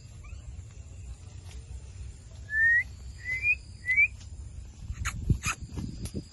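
Blue ringneck parakeet giving three short rising whistled chirps in quick succession midway, followed by a few sharp clicks and low knocks near the end.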